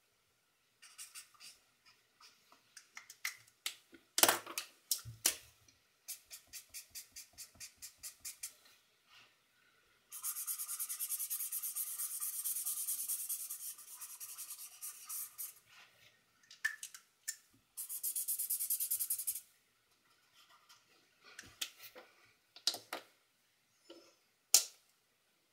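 Pen nib scratching on paper as a drawing is shaded: short separate strokes several a second, then two long spells of fast back-and-forth hatching, the first about ten seconds in and a shorter one around eighteen seconds in, with a few sharper ticks of the pen on the paper.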